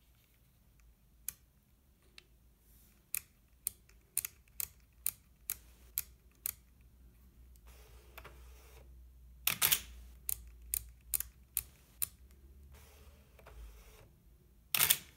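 Canon EOS 3 35mm SLR: its main dial clicks through shutter speeds in a run of single clicks, and its shutter and mirror fire with a loud double clack about nine and a half seconds in. More dial clicks follow, and the shutter fires again near the end.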